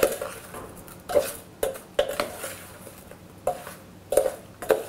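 Metal spoon stirring lemon pieces coated in sugar, salt and chili powder in a stainless-steel cooker container, clinking against the steel sides about eight times at an uneven pace, each knock ringing briefly.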